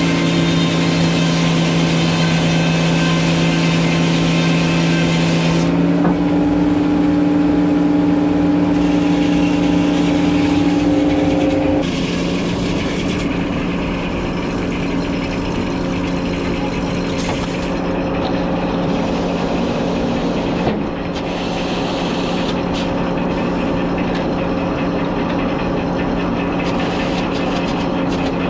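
Sawmill engine running steadily, with a hiss over the first six seconds. Its pitch shifts at about six seconds, then drops and quietens at about twelve seconds.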